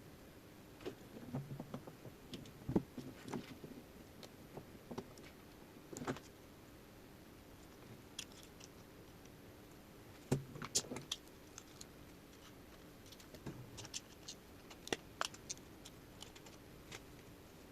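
Scattered light clicks and taps of small 3D-printed plastic parts, wire and hand tools being handled on a workbench, with a few brief clusters of clicks.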